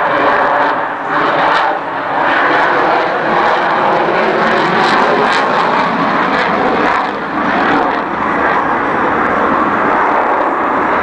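F-22 Raptor fighter jet in flight, its twin Pratt & Whitney F119 turbofan engines making loud, steady jet noise, with a few brief dips in level.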